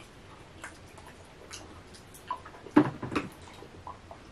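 Small scattered clicks and taps of tableware during a meal: a spoon and fork on plates and plastic cups. A louder knock comes about three seconds in.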